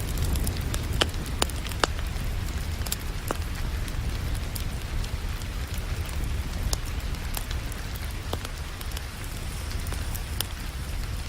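Wood fire crackling with sharp, irregular pops over a steady wash of falling rain and a low rumble.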